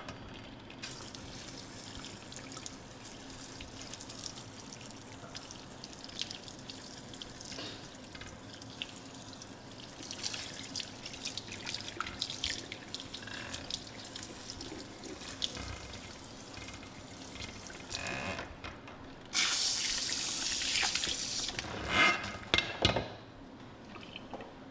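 Running water with splashing and drips, like a tap running into a sink; about 19 seconds in the flow gets much louder for about two seconds, followed by a few loud splashes.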